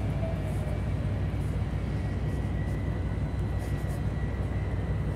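Steady low drone of container-terminal machinery running while a container is handled, with a thin high whine held over it.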